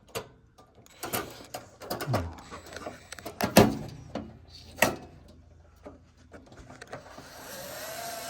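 Small metal parts clicking and knocking as screws and washers are fitted to the fan guard, the sharpest knock about three and a half seconds in. Near the end a power screwdriver starts driving a screw with a rising, then steady, whine.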